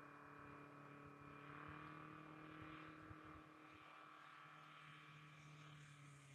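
Faint, steady drone of a distant ski-equipped light aircraft's propeller engine as it comes in to land on the glacier.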